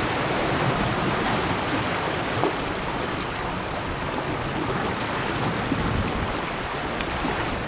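Sea washing against a rocky shore, with wind buffeting the microphone: a steady rushing noise.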